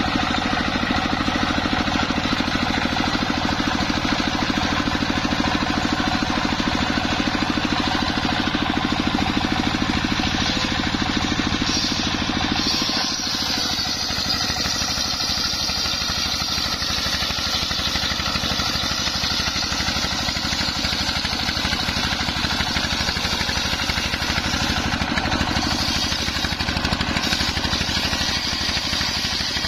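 A homemade belt-driven circular saw bench runs steadily under engine power as its toothed blade rips through a coconut palm trunk, giving a constant engine drone mixed with the sawing. About halfway through the sound briefly dips, and a higher whine then comes in more strongly.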